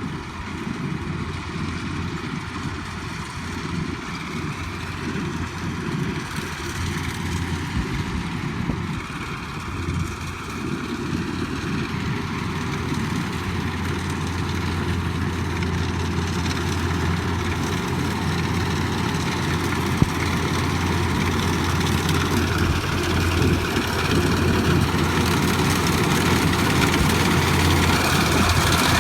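Heavy farm machine engine running steadily, growing gradually louder toward the end.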